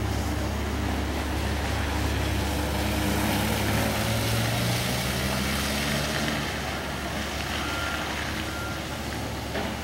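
Motor vehicle engine running amid road noise, its pitch rising in the middle and then fading away, over a steady low rumble.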